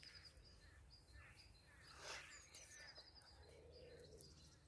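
Faint birdsong: small birds chirping in short, repeated high notes and quick falling whistles. A low cooing call, typical of a dove, starts near the end, and there is a soft rustle about two seconds in.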